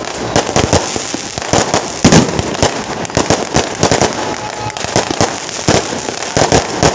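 Firecracker strings going off in a dense, irregular barrage of sharp cracks and bangs, with a louder cluster about two seconds in.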